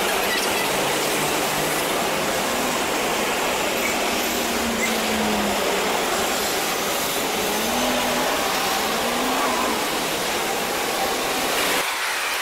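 Steady road-traffic noise, an even hiss with no distinct events. A little before the end the low rumble drops away and the sound thins out.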